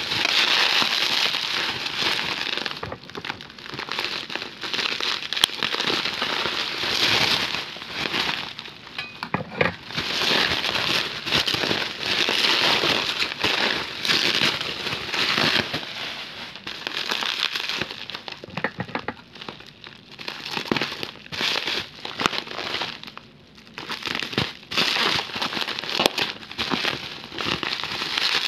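Plastic bubble wrap crinkling as hands turn and unwrap a bundle, an irregular rustle full of small clicks, with a brief lull about two-thirds of the way through.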